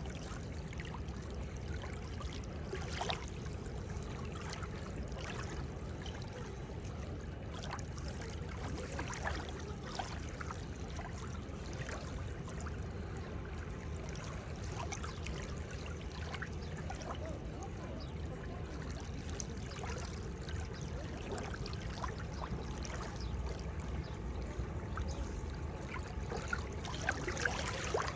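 Seawater lapping and sloshing at the shore: a steady wash of water with frequent small splashes, a little louder near the end.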